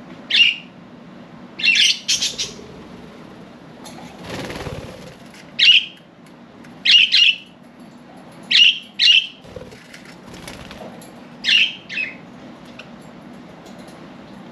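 Budgerigars giving short, sharp chirps, singly or in quick pairs, about ten in the span, with a brief flutter of wings about four seconds in.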